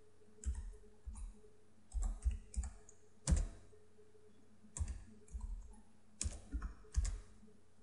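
Computer keyboard typing: scattered keystrokes in short clusters with brief pauses between them.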